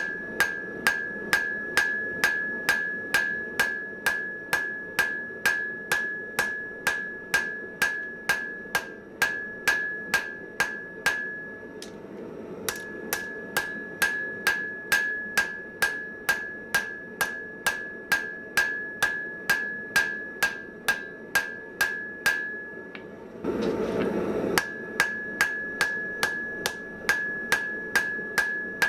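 Blacksmith's hand hammer striking hot mild steel on an anvil at about two blows a second, each blow followed by a short bright ring from the anvil. The hammering breaks off briefly twice, the second time for about a second filled by a rushing noise.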